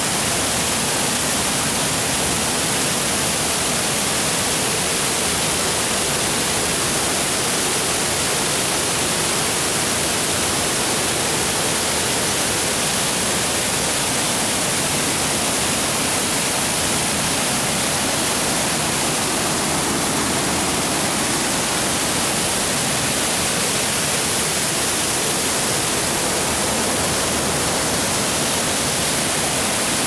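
A waterfall pouring down rock into a deep plunge pool: a loud, steady rush of falling water that does not change.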